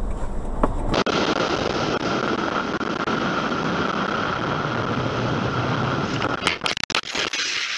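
Motorcycle on the move, heard from a camera on the bike: steady wind rush and engine noise, with a few sharp clicks near the end.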